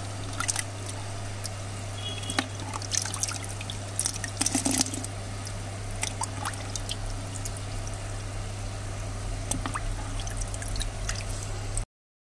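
Water sloshing and trickling in a tub as a hand stirs it, with sharper splashes clustered around two to five seconds in, over a steady low hum; the sound cuts off abruptly near the end.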